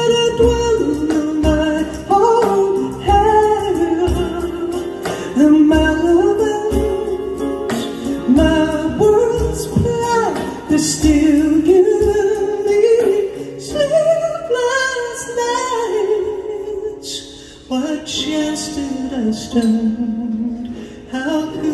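Live song: a woman singing a slow melody while strumming an acoustic guitar, accompanied by a hand drum.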